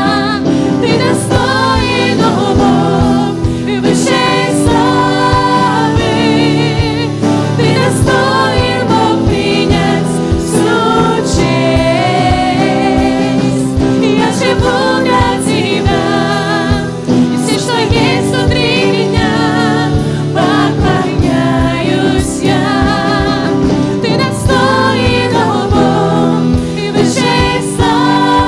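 Live worship band playing a Christian worship song: women singing in Russian into microphones over a digital piano, electric guitars and bass, with a steady beat.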